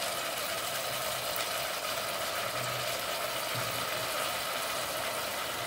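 Oil sizzling steadily in a pot as freshly added chopped sour herbs fry with chillies, garlic and onion.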